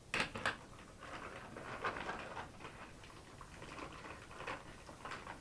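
Paper wrapping rustling and crinkling as a part is unwrapped by hand, with a couple of light knocks just at the start.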